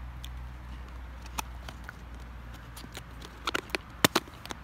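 Low steady rumble of distant road traffic, with scattered sharp clicks and taps from a clear plastic cup and spoon being handled, the loudest few coming close together near the end.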